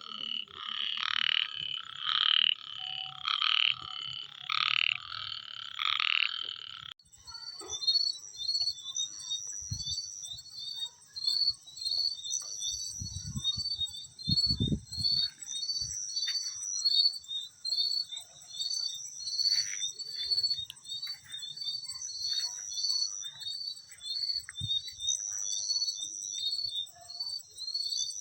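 Frogs croaking, about two calls a second. About seven seconds in, this gives way abruptly to crickets chirping in a fast, even pulse over a high steady trill that swells every couple of seconds. There are a few low thumps near the middle.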